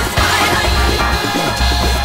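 Background music with a steady deep bass beat about once a second.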